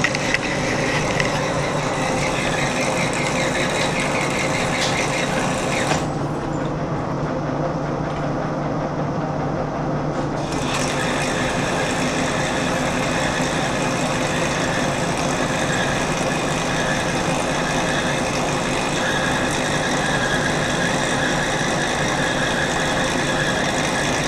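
Engine lathe turning down the outer diameter of steel bar stock: a steady running sound of the machine with the tool cutting. The higher cutting noise drops away for a few seconds near the middle, then comes back.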